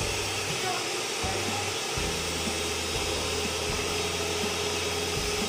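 An electric stand mixer's motor running with a steady whir.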